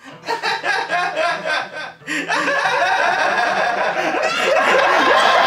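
Men laughing: short chuckles at first, then louder, unbroken laughter from about two seconds in.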